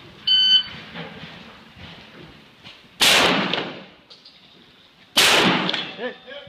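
A short electronic shot-timer beep, then two shotgun blasts about two seconds apart, each with a long echoing tail.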